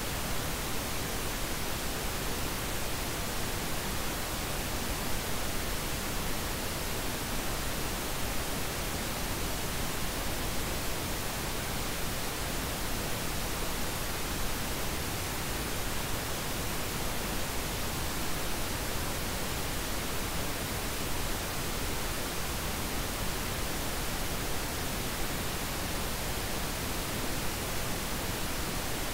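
Steady, even hiss of noise spread across low and high pitches alike, with no tones, rhythm or changes, like a generated noise track.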